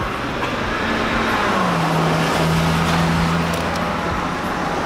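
Street traffic: a motor vehicle's engine passing close by, its low hum dropping a step in pitch a little under two seconds in, over a rush of road noise that swells and then eases.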